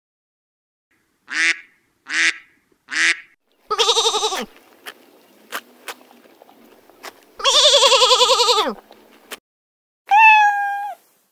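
Domestic white geese give three short honks, then a lamb bleats twice in long, quavering cries. Near the end, a cat gives a single meow.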